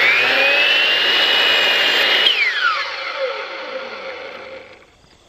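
DeWalt 12-inch mitre saw with a Diablo 44-tooth carbide blade cutting through oak molding, its motor whine rising to a steady high pitch. About two seconds in the trigger is released, and the pitch falls steadily as the blade coasts down, fading out near the end.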